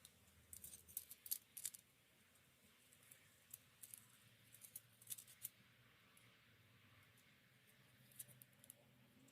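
Faint scattered clicks and light taps of small parts being handled, in a cluster over the first two seconds, another around four to five seconds in, and a few more near the end.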